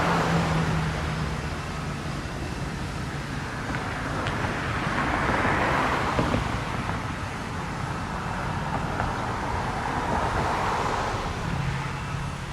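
Street traffic: cars passing by, the noise swelling and fading about three times, with a steady low hum at the start and again near the end.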